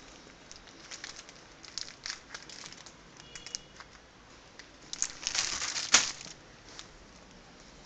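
Clear plastic bags crinkling as bagged hair bundles are picked up and handled, in scattered short crackles with a louder stretch of rustling about five seconds in that ends in a sharp crackle.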